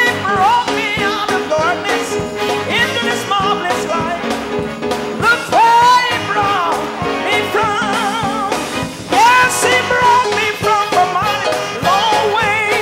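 Live gospel praise singing in a church service: a voice sliding and wavering between notes over instrumental accompaniment, with a steady beat and hand clapping from the congregation.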